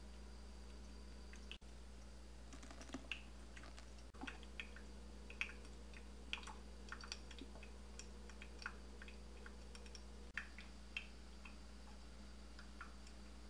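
Coffee dripping from a funnel-and-filter brewer into the glass coffee pot: faint, irregular small ticks and plinks, several a second, over a low steady hum.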